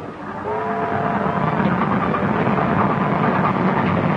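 Train whistle sounding a chord of steady notes for about a second, then the train running loud and noisy.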